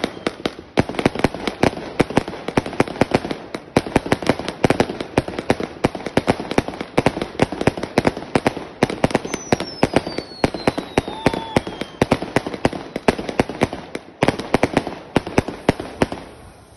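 A 100-shot consumer fireworks battery (Lonestar LS-F2-100-05, gold brocade with strobes) firing shot after shot in a rapid, uneven stream of sharp launch thumps and bursting bangs, with a faint falling whistle in the middle. The firing stops shortly before the end and the sound fades out.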